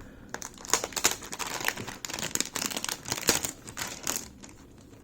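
Protective plastic film being peeled off a new laptop, a dense irregular crinkling and crackling that dies down near the end.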